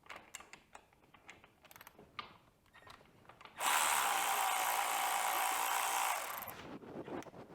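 Ratchet wrench backing out the small bolts of the dirt bike's plastic panel: scattered clicks and taps, then about two and a half seconds of fast, continuous ratcheting starting about halfway in.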